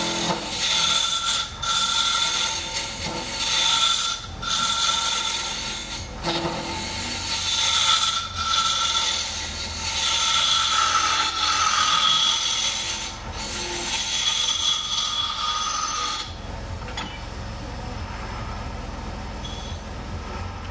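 Wood lathe spinning a wooden pen holder blank while a hand-held turning tool cuts it: a scraping, hissing cut with a wavering whine. About four seconds from the end the cutting stops and only the lathe is left running.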